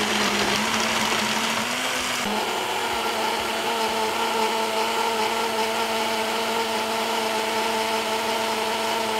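Personal smoothie blender running steadily at speed, blending oats and green banana into a thick porridge mix. Its note shifts slightly about two seconds in.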